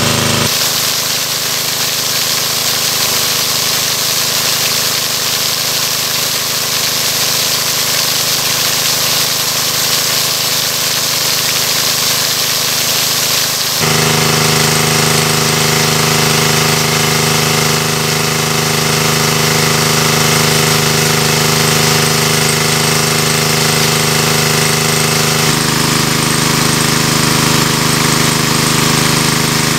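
Small petrol engine driving a water pump, running steadily at constant speed. Its sound changes abruptly about halfway through and again near the end.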